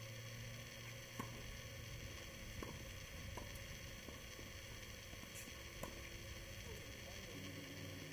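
Tennis racquets hitting the ball during a doubles rally: a few faint sharp pops about a second or two apart, the first about a second in. Under them is a steady hiss and hum from a camera's built-in microphone.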